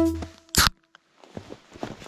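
Background music cuts off in the first half second, followed by a short sharp burst of noise. Then, after a moment of near silence, come faint, irregular crunching footsteps of snowboard boots in snow.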